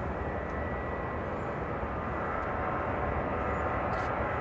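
Boeing 737-800's CFM56-7B turbofan engines running at a distance: a steady rumble with a thin high whine, growing slowly louder toward the end.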